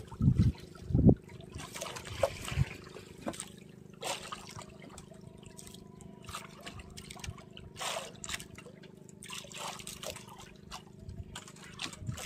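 Water splashing and trickling around a small fishing boat, with a few loud knocks in the first second and scattered small clicks afterwards, over a steady low hum.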